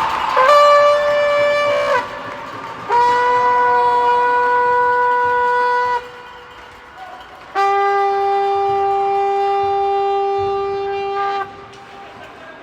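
A horn sounding three long, steady blasts. Each blast is lower in pitch and longer than the one before.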